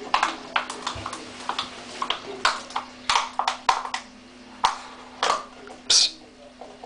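Chocolate Labrador puppy scrabbling after a small cream pot on a wooden floor: irregular taps, clicks and knocks, the loudest about a second before the end.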